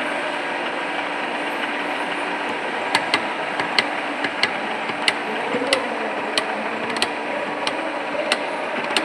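Gear-cutting machine running steadily with a low hum, cutting a gear. From about three seconds in, sharp clicks come irregularly, one or two a second.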